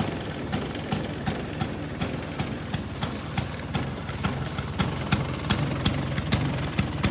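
1974 Vespa Super 150's single-cylinder two-stroke engine idling, a steady low drone with sharp pops about three times a second at uneven spacing.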